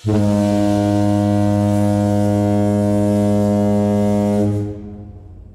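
One loud, steady, low pitched tone rich in overtones. It starts abruptly, holds for about four and a half seconds, then fades out.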